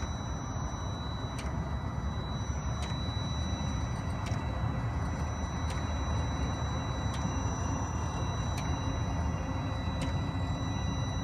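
Webasto diesel engine pre-heater starting up: its fuel dosing pump clicks evenly about once every second and a half as it draws fuel, over the steady rushing of the heater's blower.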